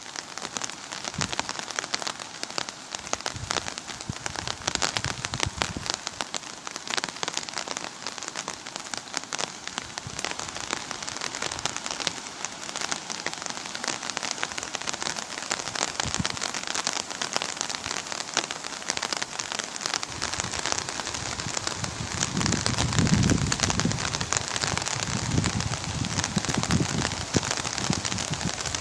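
Heavy rain falling, a dense steady patter of drops hitting the ground and water, with low rumbling swells joining in over the last several seconds.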